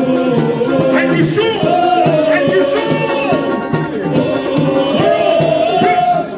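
Samba-enredo sung live by the samba school's male lead singers on microphones, with music behind them and long notes held twice.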